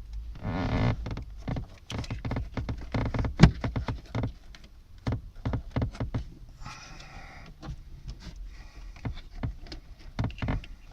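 Hands working wiring into plastic cable clips: a run of plastic clicks, knocks and rubbing, with one sharp click about three and a half seconds in.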